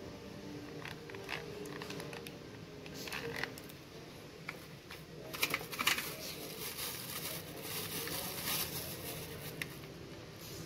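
Thin plastic packaging bag crinkling and rustling in short spells, with scattered clicks of the hard plastic car phone mount being handled.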